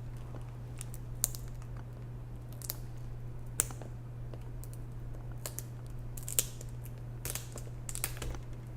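Scattered light clicks and scrapes of hands working on a laptop's screen and its video cable connector, the loudest about six seconds in, over a steady low electrical hum.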